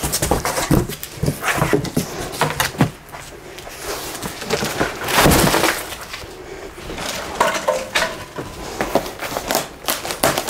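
Cardboard boxes and packaging being handled: flaps bending and rustling, cardboard crumpling, and boxes knocking and scraping as they are shifted. A louder burst of crumpling comes about halfway through.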